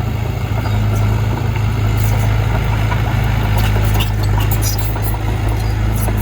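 Heavy construction machine's diesel engine running steadily with a deep hum, with a few light clicks and clanks over it from about the middle on.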